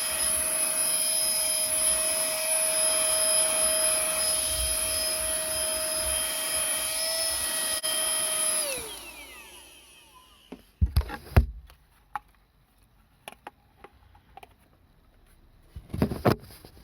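Cordless handheld vacuum cleaner running with a steady whine, switched off about nine seconds in, its motor winding down with a falling pitch. Then a few sharp clicks and knocks, two louder clusters, one a couple of seconds after it stops and one near the end.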